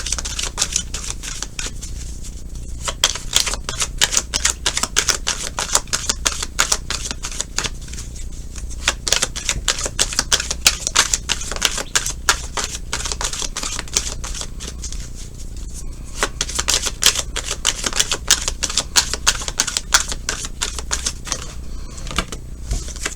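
Tarot deck being shuffled by hand: a fast, continuous run of card clicks and flutters with short pauses every few seconds, over a low steady hum.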